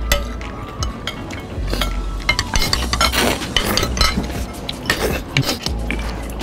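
Metal forks and spoons clinking and scraping on plates as two people eat noodles, in many irregular small clinks.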